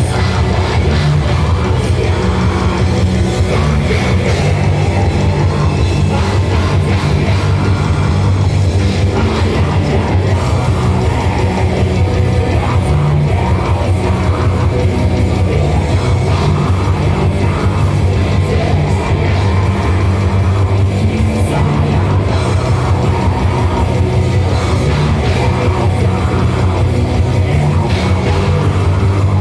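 Live metal band playing: dense electric guitars over a drum kit, with sustained bass notes and no break in the sound.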